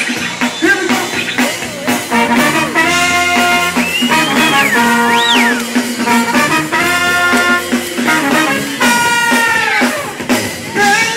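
Live funk band playing, with brass horns holding long notes over a drum kit; some notes bend up and down in pitch.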